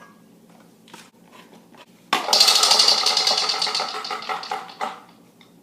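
Spin-the-wheel prize wheel spinning, its pointer clicking rapidly against the pegs, starting about two seconds in and fading over about three seconds as the wheel slows to a stop.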